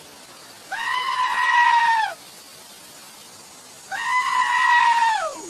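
An animal calling twice, each call a long, high-pitched cry of about a second and a half that rises at the start and falls away at the end.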